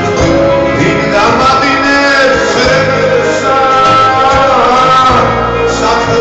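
A song: a male voice singing long, gliding notes over instrumental backing with a steady bass line.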